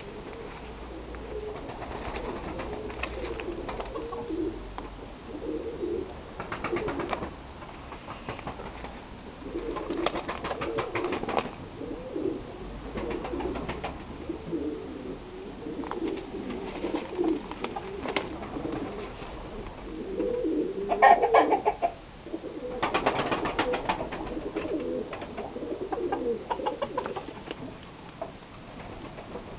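Chickens clucking and murmuring in their shed, a steady low chatter with bunches of louder, higher calls, the loudest about two-thirds of the way in.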